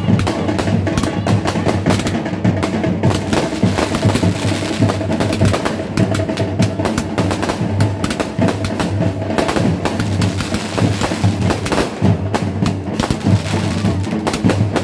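Aerial fireworks bursting with a dense, continuous crackle of popping stars, mixed with loud drum-heavy music.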